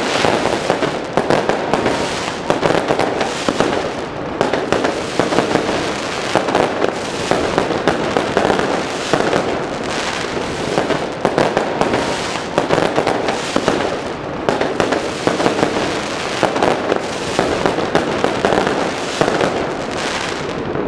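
Fireworks going off in a dense, continuous barrage of overlapping bangs and crackles, with no pauses between them.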